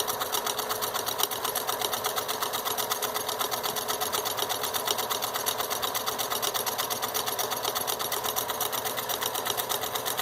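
Pfaff 362 zig-zag sewing machine running steadily, its needle stitching in an even, rapid rhythm as it sews one of its built-in decorative stitch patterns.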